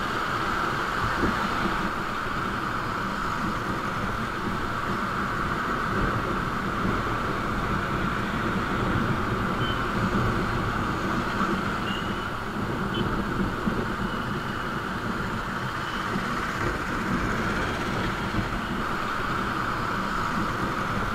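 Motorcycle riding through city traffic: steady engine and road noise.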